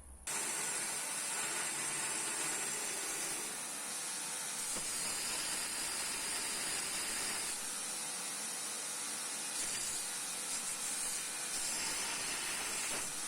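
A grinder grinding the steel of a forged chef knife blank: a steady hiss, with the grinding noise growing fuller for a few seconds at a time as the blade is pressed to the abrasive in passes.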